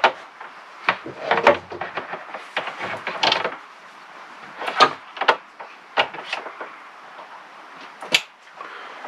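Handling noise as solar wiring is worked on and connected to a charge controller: irregular clicks and knocks with rustling of cables in between.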